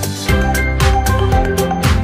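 Background music with a steady beat, held melody notes and bass thumps.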